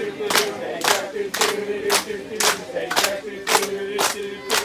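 A group of voices chanting in unison on a held pitch, over a steady beat of sharp hits about twice a second, like a campfire cheer or song.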